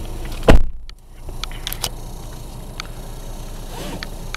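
A loud knock about half a second in, then the steady noise of a car idling in the entrance of an automatic car wash bay, with a few light clicks.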